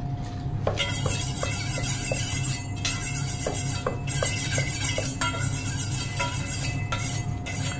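A chef's knife drawn again and again along a honing steel, making scraping strokes. At the same time another knife chops smoked bacon into strips on a plastic cutting board, with short knocks about three times a second.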